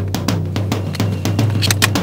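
Tense background music: a fast, driving drum beat over a low sustained drone.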